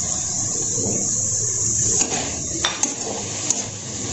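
Chopped mushrooms sizzling in hot oil in a metal kadai, with a steel spatula clinking and scraping against the pan a few times from about two seconds in as they are stirred.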